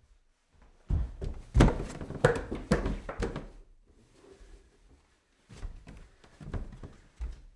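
Footsteps climbing stairs: a loud run of steps from about a second in, then a quieter run of steps near the end.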